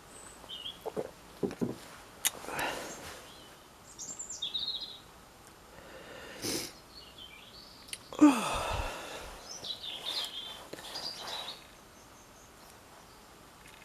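Coat fabric rustling close to the microphone as the wearer moves, with small birds chirping in the garden now and then. The loudest rustle comes about eight seconds in.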